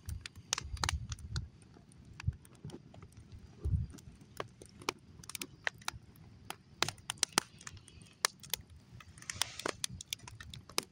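Wood campfire crackling, with sharp, irregular snaps and pops scattered throughout. There are a couple of brief low rumbles, about a second in and again near four seconds.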